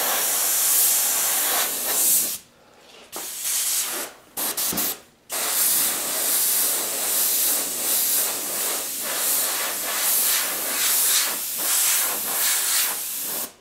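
An airbrush hisses as it sprays paint, stopping briefly three times in the first five seconds as the trigger is let off. It then sprays steadily with a slight pulsing and cuts off near the end.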